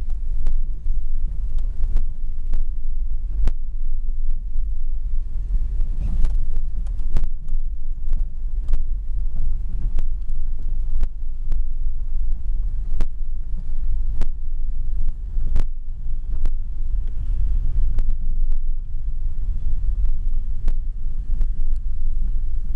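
Car driving, heard from inside the cabin: a loud, steady low rumble of engine and road. Scattered sharp taps throughout.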